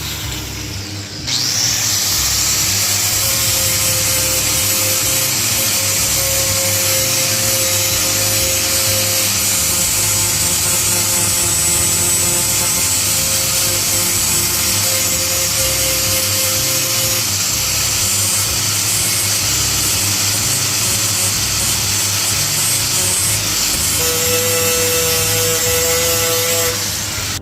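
Lathe cutting into a cracked alloy wheel, with a loud, steady scraping noise and a faint whine. It starts abruptly about a second in and stops just before the end.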